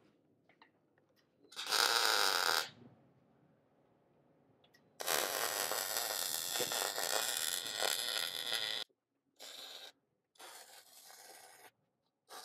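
Welding arc crackling and hissing in bursts: a short burst, then a steady run of about four seconds, then several short bursts near the end.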